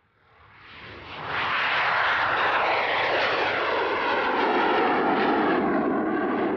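Twin Rolls-Royce Derwent turbojets of a Gloster Meteor NF11 night fighter at high power as it lifts off and passes low. The jet roar builds over the first second and a half and then holds loud, with a whine that slides down in pitch as the aircraft goes by.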